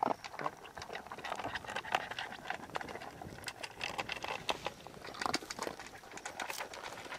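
Doberman eating from a plastic slow-feeder bowl: a quick, irregular run of small crunches and clicks as it chews food and its teeth and muzzle knock against the bowl.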